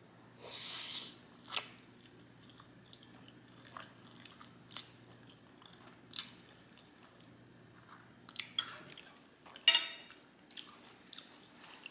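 Close-miked chewing and wet mouth smacking on Korean black bean noodles (jjajangmyeon). A longer noisy burst comes just under a second in, then short clicks and smacks at uneven intervals, the loudest about ten seconds in.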